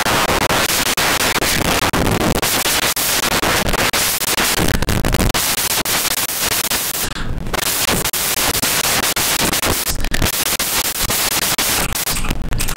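Loud, dense crackling noise like heavy static, with a few brief drop-outs.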